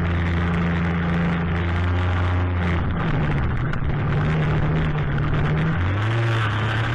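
Ultralight aircraft engine and propeller running steadily, with its note shifting about three seconds in and again near the end.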